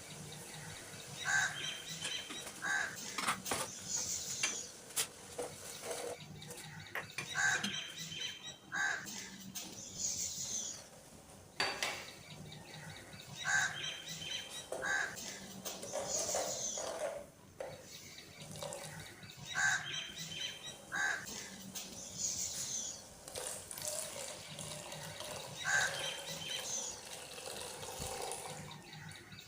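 Bird calls over a sound of running water, the same pattern of calls repeating about every six seconds.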